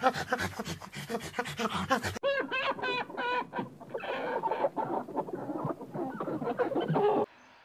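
A flock of domestic chickens: a row of short, pitched calls from about two seconds in, then many birds clucking at once, cutting off suddenly near the end. The first two seconds are a different animal sound, a fast rhythmic run of short pulses, about seven a second.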